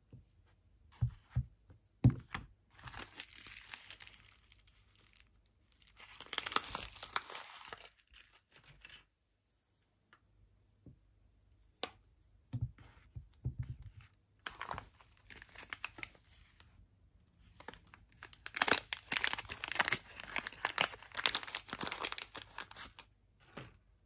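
Soap bar wrappers being torn open and crinkled by hand in several spells of crackling, with a few dull knocks of the bars being handled near the start and about halfway.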